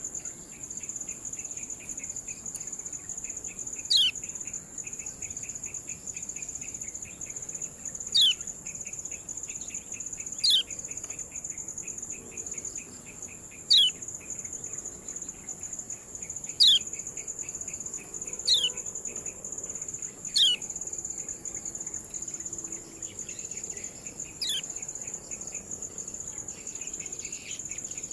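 Kecial kuning giving short, sharp 'ciak' calls that slide steeply downward in pitch, eight of them spaced two to four seconds apart. Under them runs a steady high-pitched insect-like drone and a faint rapid trill.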